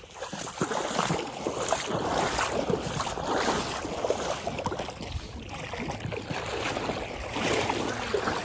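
River water splashing and sloshing irregularly throughout, with no voices.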